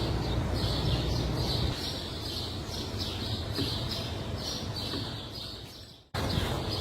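A bird chirping over and over, about two short high chirps a second, over a low hum that drops away a couple of seconds in. The sound cuts out for an instant near the end.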